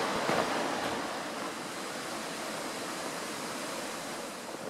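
Steady, even rushing noise of the outdoor ambience, with a last faint footstep crunching in snow just at the start.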